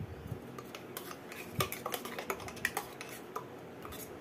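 Irregular metallic clinks and taps of steel kitchenware as freshly ground mustard paste is tipped and scraped out of a steel mixer-grinder jar into a steel bowl.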